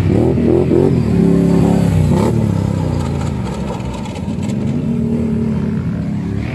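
Racing quad bike engines revving hard. The pitch climbs steeply in the first second, rises and drops again about two seconds in, then runs steadier with small throttle changes.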